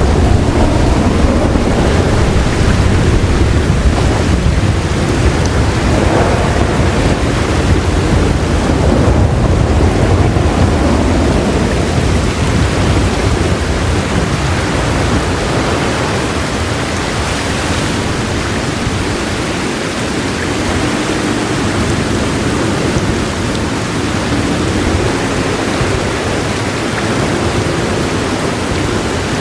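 Heavy rain falling steadily. A low thunder roll rumbles under it through the first part and dies away about halfway through.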